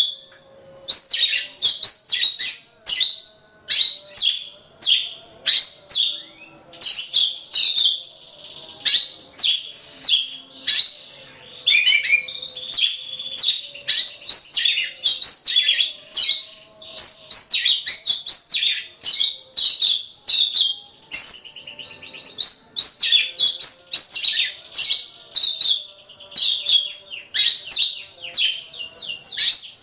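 Oriental magpie-robin (kacer) singing: a rapid, unbroken run of sharp, high whistled and chattering notes, many of them sweeping steeply in pitch.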